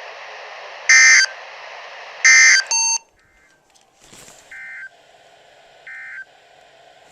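NOAA Weather Radio receiver sending the Emergency Alert System end-of-message data bursts that close the weekly test: short, loud, screechy digital bursts over radio static. The static cuts off at about three seconds, and two fainter bursts of the same kind follow.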